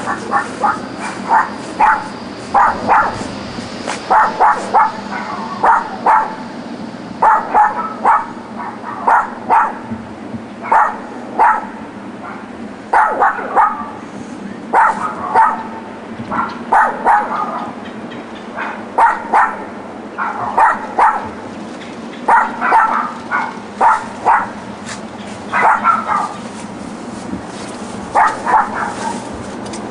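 Dogs yapping nonstop in quick runs of two to four barks, one run every second or two with only short pauses. This is the incessant barking of dogs left alone in a back yard all day.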